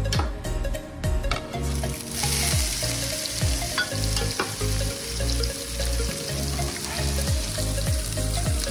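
Sliced hot dog pieces tipped into hot oil in a frying pan, sizzling. The sizzle starts about two seconds in and holds steady.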